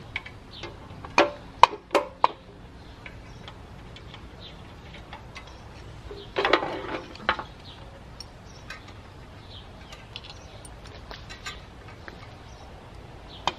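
Metal clicks and knocks from a panoramic X-ray machine's mechanism being dismantled by hand: several sharp knocks in the first couple of seconds, a rattling scrape of about a second in the middle, then scattered light ticks.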